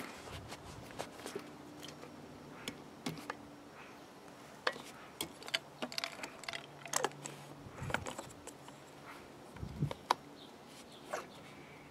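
Scattered light clicks and taps of handling: a plastic oil bottle set down on a wooden table and hands on a strimmer's plastic engine housing.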